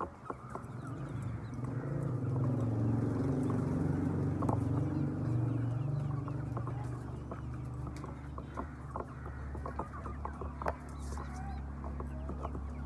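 Chickens clucking over a low, steady hum that swells up over the first couple of seconds, with scattered sharp clicks and taps.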